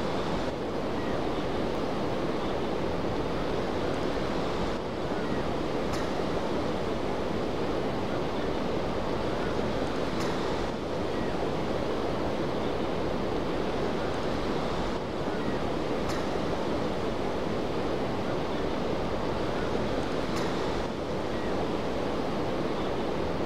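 Steady rushing noise of wind and choppy water, as in a storm over open water, with a faint click about every five seconds.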